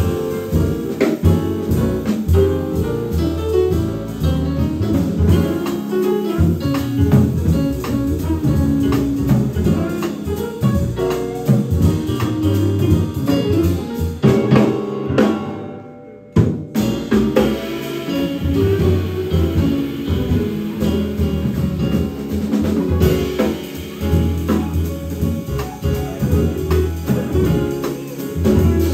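Live jazz quartet playing, with a busy drum kit under piano and bass. The music thins out and drops away for a moment about halfway through, then the band comes straight back in.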